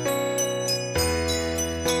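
Music played on keys and bells only: sustained keyboard chords changing about once a second, with high bell notes struck over them and a deeper bass note coming in about a second in.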